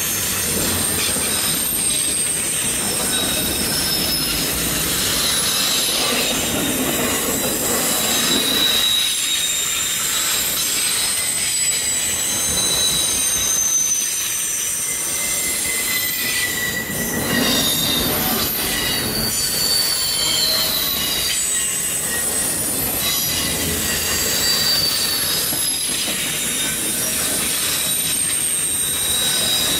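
Freight train's wheels squealing as the cars grind through a curve. Several high-pitched squeals come and go and shift in pitch over the steady rumble and clatter of the passing cars.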